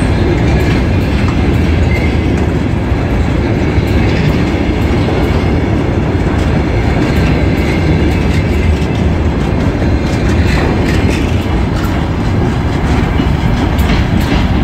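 Freight train of covered hopper wagons rolling past close by: a loud, steady rumble of steel wheels on the rails with scattered clicks and knocks from the rail joints.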